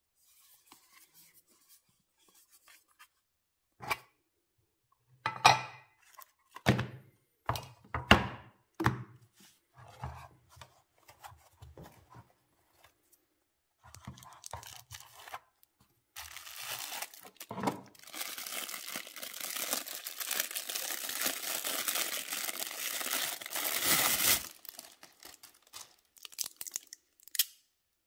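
Unboxing handling noises: a series of sharp knocks and clicks from the metal watch tin and its insert, then about eight seconds of continuous rustling and tearing of plastic wrapping around the watch.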